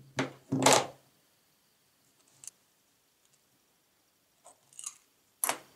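Desk handling sounds: a mobile phone set down on a wooden desk with a couple of sharp knocks near the start, a faint click, then a short scratch of a ballpoint pen writing on paper, and another sharp knock near the end.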